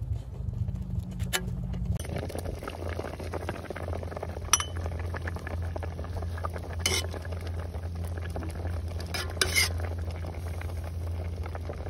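A ladle stirring a steaming pot of soup and clinking sharply against the metal pot several times, over a steady low rumble.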